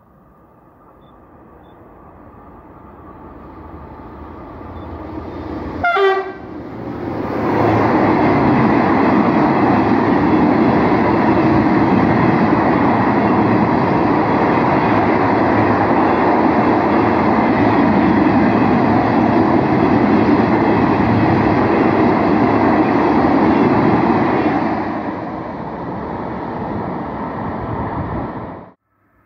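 An SNCF BB 22200-class electric locomotive and its train of flat wagons approach and pass at speed. The sound grows as the train nears, with a very short horn note about six seconds in. A loud steady rush of wheels on rail follows as the wagons go by, easing near the end as the tail passes, then cuts off abruptly.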